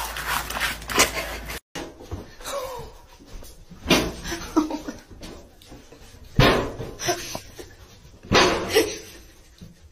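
A person laughing in three short bursts about two seconds apart.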